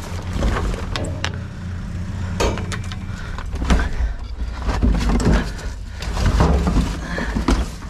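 Loose junk and tools clattering and knocking as items are rummaged through and handled, a string of short sharp knocks over a steady low rumble.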